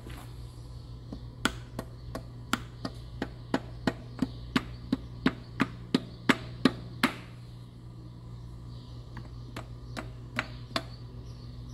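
Small hammer tapping on metal at the crankshaft bearing caps of a John Deere 4010 engine: a run of about sixteen sharp taps at roughly three a second, then a pause and three more taps near the end.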